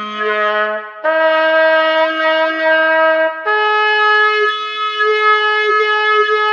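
Computer-synthesized trumpet with a rubber plunger mute playing held notes that step up in pitch about a second in and again past three seconds. The tone opens and closes in a wah as the mute moves on and off the bell.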